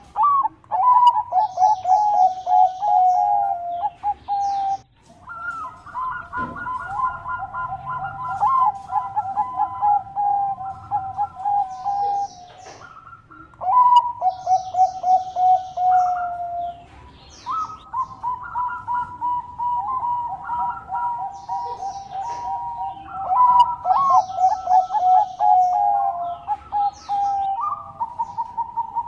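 Zebra dove (perkutut) of the Bangkok song type cooing: phrase after phrase of quick, bright, staccato coos with brief pauses between them. Faint high chirps sound now and then in the background.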